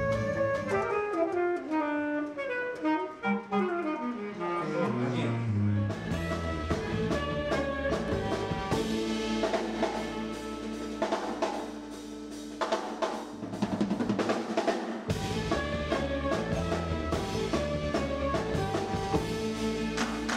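Live jazz band playing, saxophones over a drum kit. It opens with a quick run of notes falling in pitch, then the drums and cymbals come in under held sax lines.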